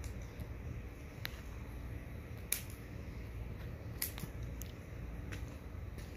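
Small hand shears snipping shrub twigs while shaping a topiary: about seven sharp, short snips at irregular intervals, the loudest about two and a half seconds in, over a steady low rumble.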